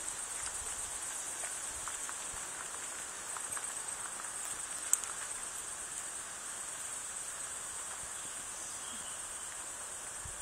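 Insects chirring in a steady high-pitched chorus, with one sharp click about five seconds in.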